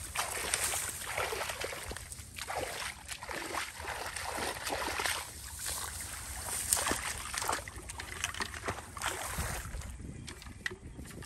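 Footsteps wading through shallow muddy water and long grass: irregular sloshing, splashing and rustling.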